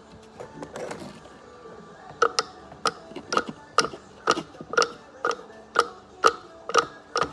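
Hand tool working metal screws loose on an old horn's housing: sharp metallic clicks, each with a brief ring, about two a second, starting about two seconds in.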